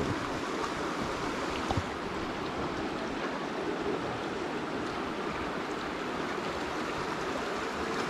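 River water flowing steadily, an even wash of noise, with one short knock a little under two seconds in.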